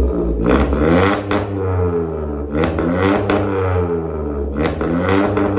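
Volkswagen Polo 1.0 naturally aspirated engine revved through a straight-pipe exhaust with a Varex valved muffler: a droning exhaust note that climbs and falls back about three times.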